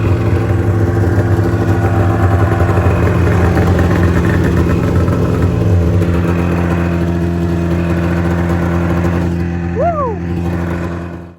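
Arctic Cat Mountain Cat snowmobile's two-stroke engine running steadily at idle, cleaned out and no longer misfiring. A brief falling chirp is heard about ten seconds in.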